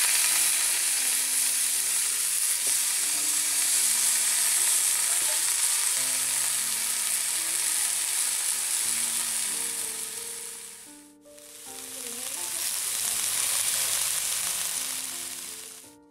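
Shredded cabbage sizzling loudly in hot oil in a karai (wok) on a wood-fired clay stove. The sizzle fades and comes back about eleven seconds in.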